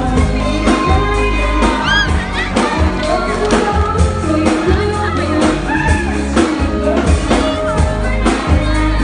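Live pop band: a woman singing into a microphone over a steady drum beat, electric guitar and keyboard, amplified through the PA.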